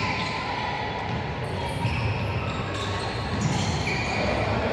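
Futsal match play on a wooden indoor court: the ball being kicked and players' feet running on the floorboards, with many small knocks. The sound echoes through a large gym hall.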